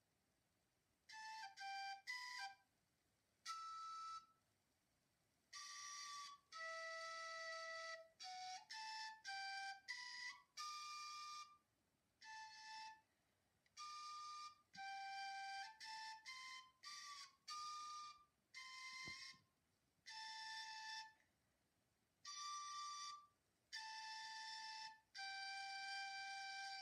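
Outro music: a slow solo melody on a flute-like instrument, single held notes in short phrases with pauses of a second or two between them.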